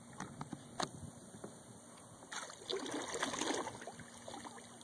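Kayak paddle stroke through calm water: a splashing, trickling wash for about a second near the middle, with a couple of light knocks in the first second.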